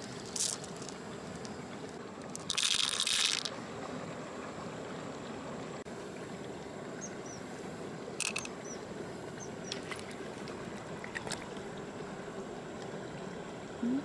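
Wet squelching and dribbling as fingers work through the slimy flesh and milky fluid of a large freshwater pearl mussel, with a louder splashy burst about three seconds in and a few short clicks against the shell. A steady hiss lies underneath.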